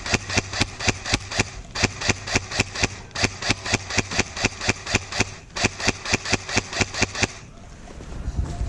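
Airsoft gun firing a rapid, even string of shots, about six a second, with two short breaks, stopping about seven seconds in; a steady low hum runs underneath.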